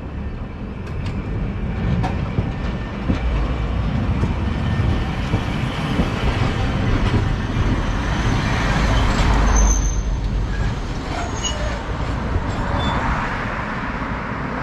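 Hakodate streetcar running on its rails: a steady rumble of wheels on track with scattered clicks, growing louder to a peak about two-thirds of the way through, then easing off.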